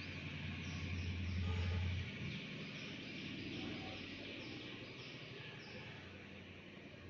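Baby snoring: a low snore that swells and ends about two seconds in, followed by quieter breathing. Faint repeated high chirps run throughout the background.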